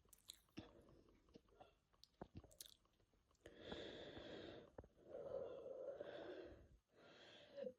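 Faint close-up mouth noises: a few small clicks and smacks, then three breaths, the first two longer and the last one quieter near the end.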